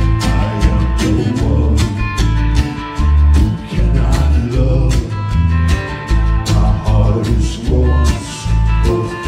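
Live alt-country band playing: electric bass, strummed acoustic guitar and electric guitar over a steady drum beat.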